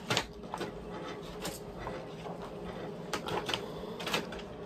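Home printer printing a page: its motor runs steadily, with several sharp clicks and clacks from the paper feed and print head.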